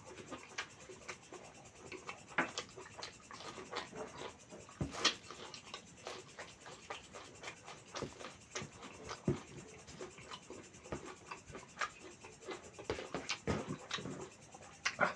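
Close-up eating sounds: chewing mutton curry and rice, with irregular small wet clicks and smacks, one sharper click about five seconds in.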